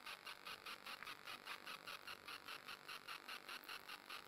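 A small hand tool rubbing on wood in quick, even back-and-forth strokes, about eight a second: scraping or filing the inside of the carved arc in a timber block.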